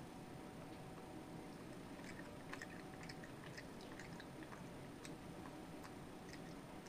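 Faint crunching of a monkey chewing nuts: soft, scattered crisp ticks starting about two seconds in.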